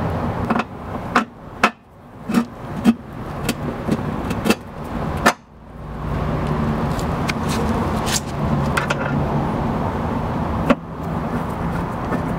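A ratchet wrench turning a bumper mounting bolt, with a string of sharp clicks about one every half second. Then a steady low rumble with a hum, and a few faint ticks.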